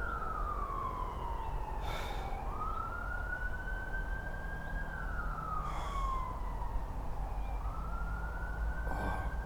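Siren wailing: its pitch rises quickly, holds high for a couple of seconds, then slides slowly down, going through this cycle about two and a half times.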